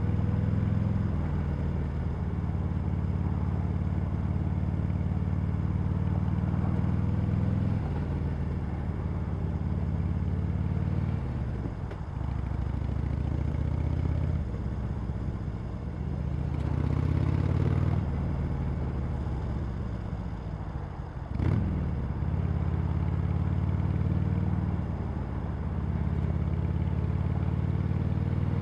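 Harley-Davidson Sportster Iron 883's air-cooled V-twin running through its stock exhaust, the pitch falling and rising as the throttle is closed and opened again. A single sharp click comes about two-thirds of the way through.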